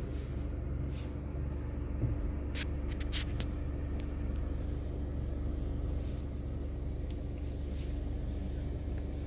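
Car cabin noise while driving: a steady low rumble of engine and tyres with a faint steady hum, and a few brief clicks about two and a half to three seconds in.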